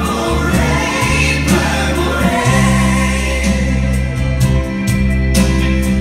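A song with singing: voices over sustained bass notes, with light percussion ticks.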